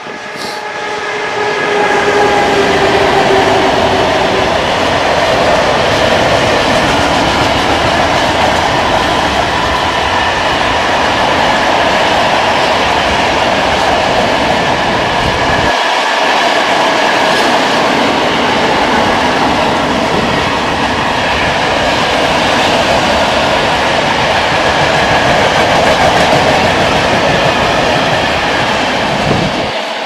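A freight train of four-axle Eaos open wagons behind an EU07 electric locomotive passing close by. There is a steady whine as the locomotive goes past in the first few seconds, then the continuous rolling noise of the wagon wheels on the rails, which falls away at the very end as the last wagon clears.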